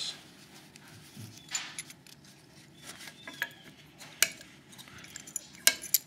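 Metal keys on a key ring jangling and clicking against a brass lock cylinder and a small bench vise as the cylinder is handled and clamped. Scattered light clicks, with a few sharper clicks near the end.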